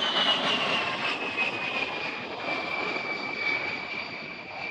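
A-10 Thunderbolt II's twin TF34 turbofan engines whining with a jet rush as the aircraft flies past. The whine falls in pitch over the first two seconds, then holds steady while the sound slowly fades.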